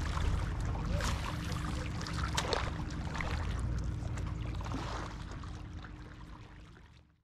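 Lakeside marina ambience: a low steady rumble with water sounds and a faint steady hum, with a few light knocks. It fades out over the last two seconds.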